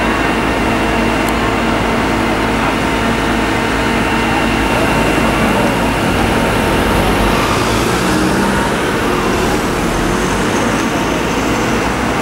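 Diesel engine of a fire appliance running at a steady speed, with a constant low hum and whine throughout. It is most likely the aerial ladder platform's truck engine, which drives the hydraulics for the raised boom.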